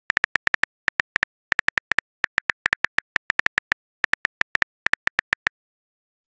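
Texting app's keyboard typing sound effect: a string of identical short clicks, one per typed letter, coming several a second in uneven runs with brief pauses.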